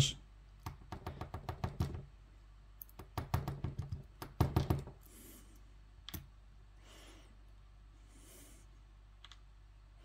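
Quick small metallic clicks and rattles from an Assa oval lock cylinder and its key being handled as the lock is taken apart, in three bursts over the first five seconds, then a single click about six seconds in and a faint one near the end.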